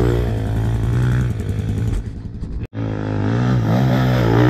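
Dirt bike engine revving, its pitch rising and falling, with a sudden brief dropout about two-thirds of the way through.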